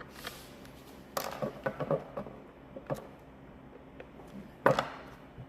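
Small screws and plastic instrument-cluster parts being handled and fitted: a scatter of light clicks and taps, with a small cluster about a second in and the sharpest click near the end.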